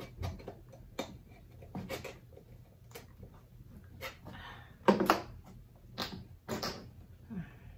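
Scissors clicking and snipping as they cut at a hard plastic glue bottle, a series of sharp irregular clicks, with a louder burst and a short grunt about five seconds in.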